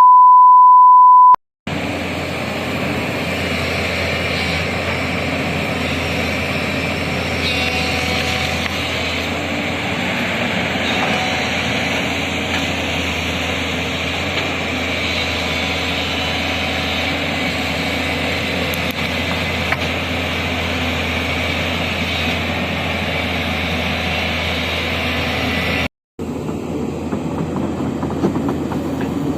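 A steady 1 kHz test-tone beep for about a second and a half, then heavy diesel excavator engines running steadily. The engine sound cuts out briefly near the end and then picks up again.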